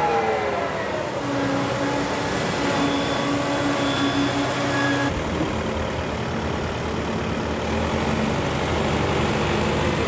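Claas Lexion combine harvester running as it drives, with a steady engine hum and a falling whine at the start; the sound changes abruptly about five seconds in.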